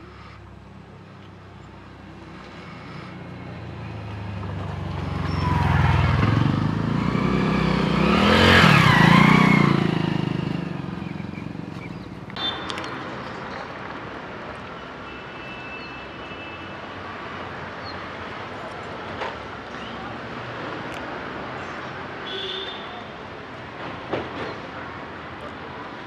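A motor vehicle passing by: its engine noise swells to a peak about eight to ten seconds in, the pitch bending down as it goes past, then fades. After an abrupt cut at about twelve seconds, a quieter steady background with a few faint short high sounds.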